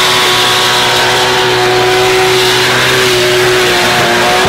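Race car engine held at high, steady revs, its pitch sagging slightly about three seconds in and wavering near the end.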